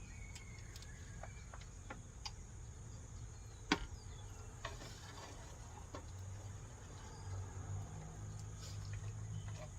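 Insects droning steadily at a high pitch, with a few scattered light clicks and knocks, one sharper about four seconds in. A low hum comes in over the last few seconds.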